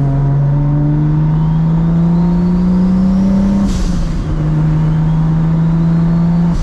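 Straight-piped, big-single-turbo Toyota Supra MKIV 2JZ inline-six heard from inside the cabin, pulling under part throttle with its exhaust note rising steadily and a faint rising turbo whistle. A short hiss comes at an upshift a little under four seconds in, and the note drops and then holds steady while cruising.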